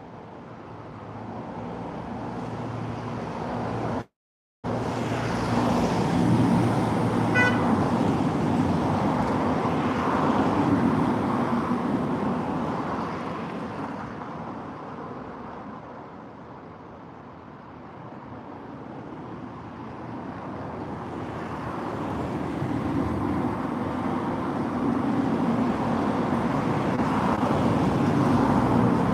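Road traffic: motor vehicles passing, the noise swelling and fading as they go by. There is a brief gap of silence about four seconds in.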